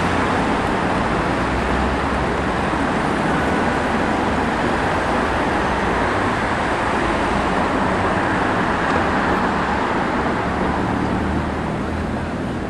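Street traffic noise: a steady rumble and hiss of road vehicles.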